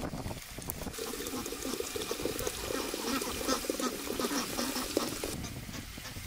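Water poured in a stream into a glass teapot through its strainer lid, filling it, with the pour stopping about five seconds in.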